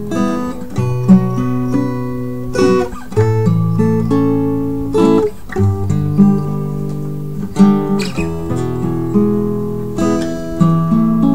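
Background music on acoustic guitar: chords struck about once a second and left to ring.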